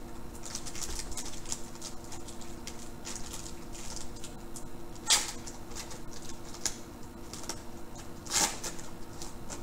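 Plastic trading-card pack wrapper crinkling and rustling as it is torn open and handled, with two louder crackles about five and eight seconds in.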